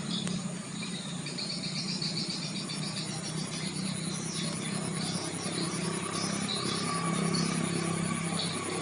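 Small bird chirping and trilling in quick high notes, over a steady low hum.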